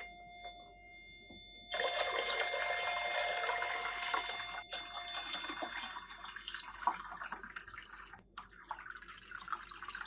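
Water poured from a flask into a clear plastic tank, splashing, with a short break about eight seconds in before pouring resumes. Under it a steady tone from the microwave receiver's speaker stops about five seconds in, as the rising water absorbs the microwaves and the signal drops to pretty much zero.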